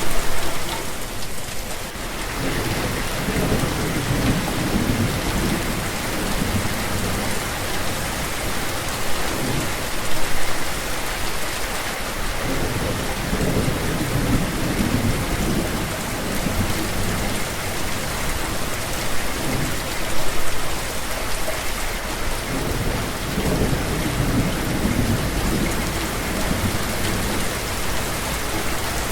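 Steady heavy rain falling, with low rumbles of thunder swelling and fading every few seconds.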